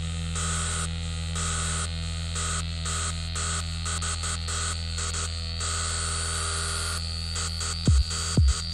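Electronic ambient noise music: a steady low hum-like drone under bursts of static that cut in and out in a stuttering rhythm, with a thin high tone slowly rising. Deep electronic kick drums come in about eight seconds in.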